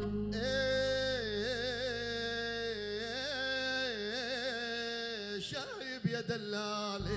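Male singer holding a long, ornamented vocal phrase in Arabic style, the pitch wavering in runs over a steady low backing. Near the end the voice drops away and the band comes back in.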